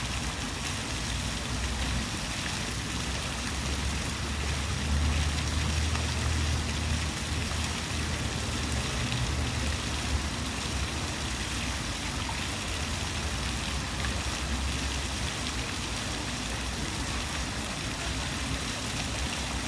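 Steady rushing and trickling of running water, with a low rumble that swells for several seconds.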